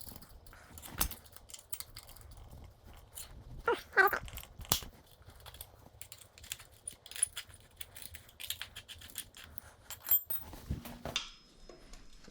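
Scattered clicks and clinks of hand tools and metal parts during the teardown of a dirt bike's rear end, with a short yelp-like vocal sound about four seconds in.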